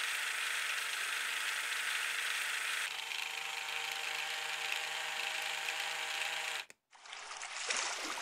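Lego Technic electric motor driving gears along toothed gear racks to lift a bridge deck: a steady whir with gear-tooth rattle. The pitch shifts about three seconds in; the sound cuts off abruptly near seven seconds, then comes back rougher, with clicks and rattles.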